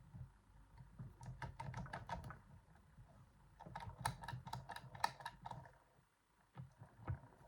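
Rapid metallic clicks and taps of a homemade pick working the sliders of a Yuema-style slider lock, in two quick runs with a few stray clicks near the end.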